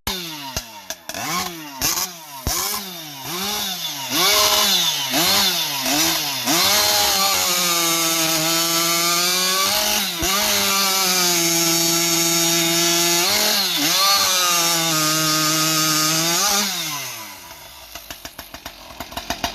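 Husqvarna 592 XP chainsaw with a prototype exhaust pipe, blipped up and down about eight times. It is then held wide open for about ten seconds with two short dips, and drops back to a slow idle near the end. The owner says the Autotune runs it too lean on the bottom end with this pipe.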